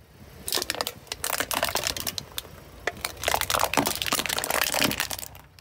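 Car tyre rolling over and crushing aluminium soda cans: dense crackling and crumpling of the metal, starting about half a second in and stopping shortly before the end, over a low rumble.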